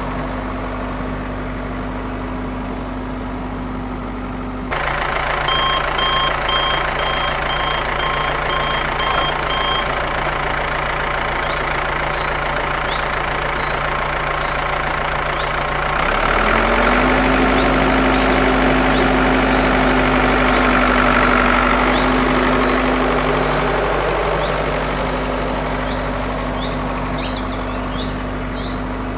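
A vehicle engine hums steadily. From about five seconds in, a reversing beeper sounds about twice a second for some four seconds. Birds chirp through the second half, and at about sixteen seconds the engine's pitch rises and it runs louder for several seconds before settling back.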